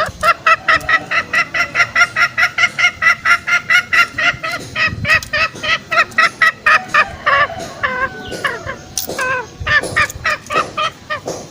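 Green junglefowl calling: a rapid, even series of clucking calls, about four a second, which slows into irregular calls after about seven seconds.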